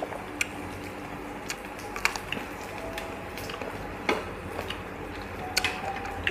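Scattered sharp clicks and taps of metal tongs and chopsticks against the grill plate and dishes, irregular, a few times a second at most, over a low steady hum.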